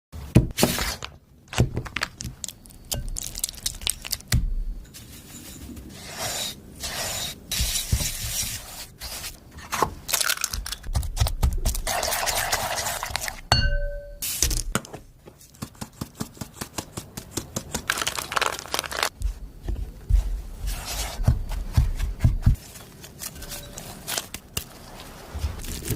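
Kitchen utensils and dishes clinking, knocking and scraping in irregular bursts while baking ingredients are handled, with a short electronic beep about fourteen seconds in.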